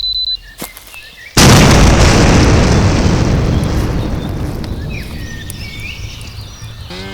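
A bomb prop's rapid high beeping cuts off a moment in: the sign that it is no longer safe. About a second later a loud explosion sound effect goes off and rumbles away slowly over several seconds.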